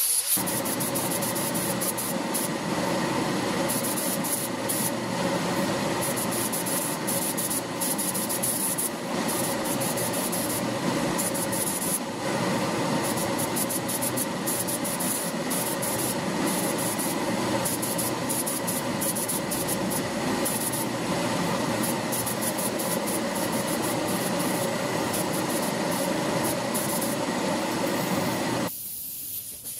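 Air compressor running steadily, a motor-driven hum under a hiss, then cutting off about a second before the end.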